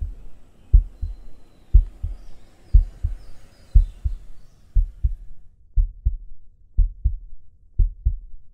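Heartbeat sound effect: low double thumps, lub-dub, repeating about once a second.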